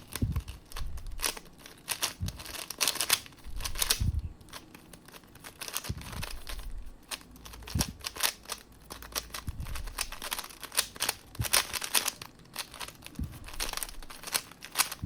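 Non-magnetic 3x3 speedcube being turned fast by hand: rapid plastic clicking and clacking of the layers in quick bursts, with short pauses between them.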